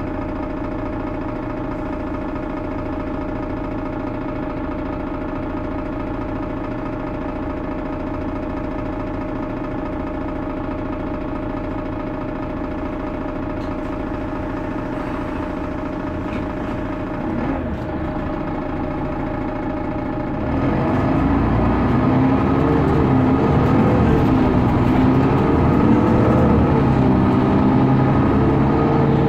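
Mercedes-Benz Citaro O530G articulated bus's diesel engine idling steadily, then about 20 seconds in getting louder as the bus pulls away and accelerates, the pitch rising, dipping at a gear change and rising again.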